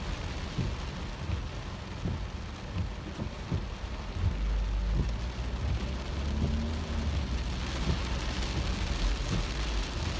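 Heavy rain falling on a car's roof and windshield, heard from inside the moving car over the car's low rumble, with scattered small drop hits.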